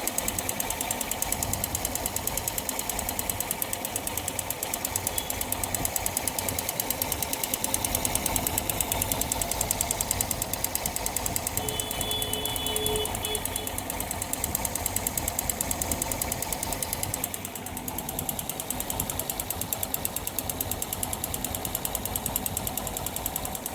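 Yamaha FZS motorcycle's single-cylinder engine running with a fast, steady knocking rattle: the abnormal engine noise that is the bike's problem.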